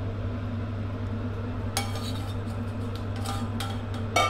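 Scattered clinks and knocks of a bowl and utensil against a nonstick pan as the marinade is tipped in over the chicken wings. They start about two seconds in, with the sharpest knock near the end, over a steady low hum.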